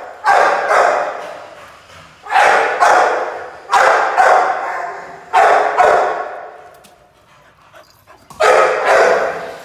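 Pit bull barking: about ten loud barks, mostly in quick pairs, with a pause of about two seconds before a last pair near the end. Each bark echoes and fades slowly in the bare shed.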